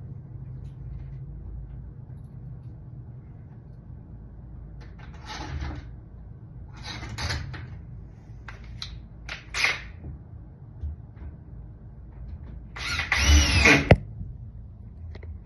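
Power drill driving a screw into a door lock: a few short bursts, then one longer run of about a second near the end with the motor pitch rising and falling, stopping with a sharp click.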